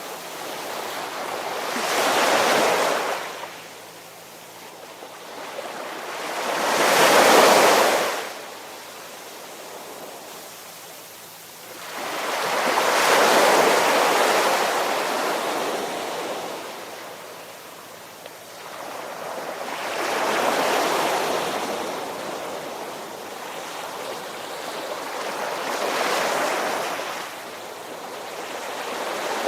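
Ocean waves washing in, five slow surges of rushing water that each swell and fade over a few seconds; the one about seven seconds in is the loudest.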